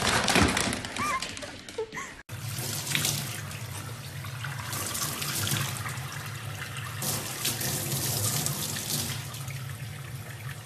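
A few knocks in the first two seconds, then a tap running hard into a stainless-steel sink, the water splashing off a young chimpanzee standing in it, with a few louder splashes.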